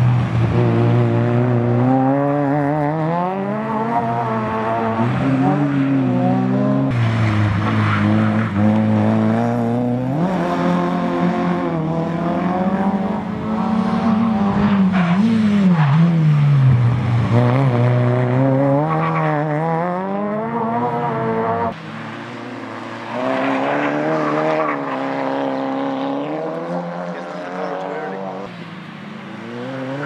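Rallycross hatchback race cars' engines revving hard, their pitch climbing and dropping over and over as the drivers go through the gears and lift off. The sound drops and changes abruptly about two-thirds of the way through.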